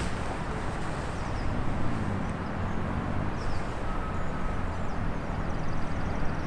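Strong wind rumbling and buffeting against the microphone, with faint bird chirps in the background.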